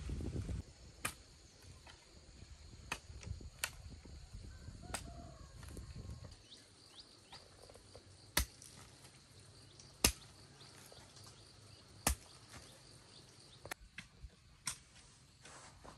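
Sharp knocks, one every second or two, the loudest about eight, ten and twelve seconds in, over a faint steady high hum.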